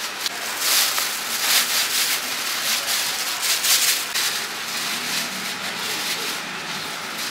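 Metal spatula scraping and tossing food in a wok during stir-frying: irregular rasping strokes, busiest in the first half.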